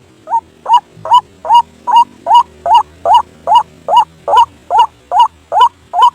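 White-breasted waterhen (ruak-ruak) call played as a bird-trapping lure: a rapid, even series of short hooked 'kwak' notes, about two and a half a second, beginning abruptly.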